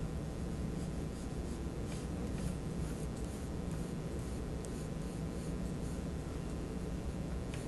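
Graphite pencil scratching across drawing paper in short strokes, darkening and shading lines, over a steady low hum.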